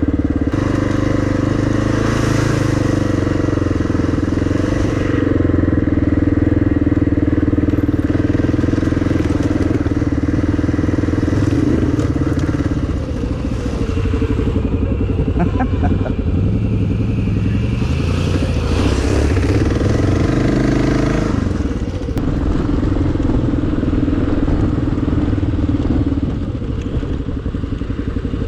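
Kawasaki KLR650's single-cylinder four-stroke engine running as the bike is ridden on a dirt trail, its pitch rising and falling with the throttle and climbing in a rev about twenty seconds in.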